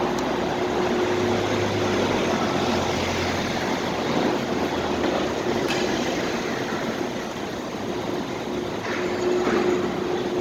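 Steady ambient rumble of a supermarket car park, with vehicle and machinery noise, a constant mid-pitched drone, a low hum that comes and goes, and a brief click near the middle.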